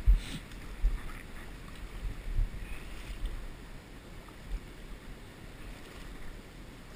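Water swishing as someone wades through shallow river water, with a few irregular low bumps on the microphone, the strongest just at the start.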